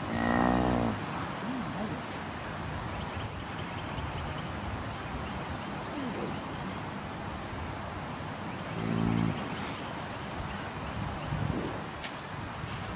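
Cattle mooing twice: a loud, drawn-out moo right at the start and a shorter, deeper one about nine seconds in.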